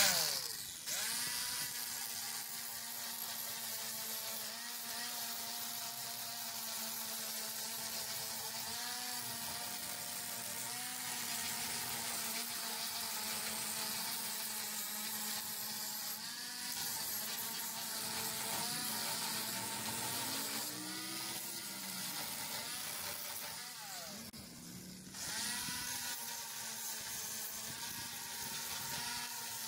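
Electric angle grinder running and grinding rust off an iron railing. Its motor whine wavers up and down as the disc is pressed and worked around the bars, over a steady gritty hiss from the abrasive on the metal. Near the end the sound dips briefly, then picks up again.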